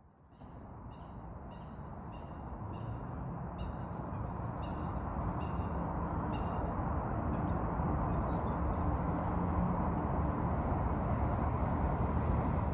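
Outdoor ambience fading up: a steady low rumble, with short bird calls repeating over it.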